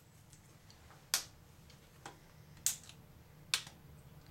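Plastic screen bezel of an Acer Aspire One netbook being pried off by hand, its clips snapping loose with sharp clicks: three loud ones and a fainter one, spread across a few seconds.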